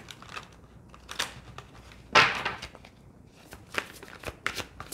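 A thick deck of oracle cards shuffled by hand: scattered soft taps and flicks of card edges, with one louder rustle of cards sliding together about two seconds in.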